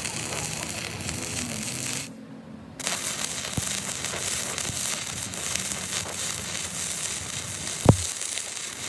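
Electric arc welding: a steady crackling hiss that stops for under a second about two seconds in, then strikes up again. A single sharp knock of metal sounds near the end.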